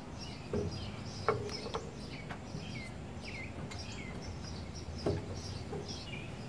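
Small birds chirping in a quick repeating series, some calls sweeping downward. A few light metallic clinks and knocks sound over them, the loudest about a second in with a short ring.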